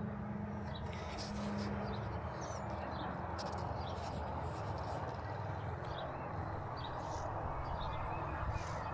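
Steady outdoor ambient hiss with scattered faint, short bird chirps.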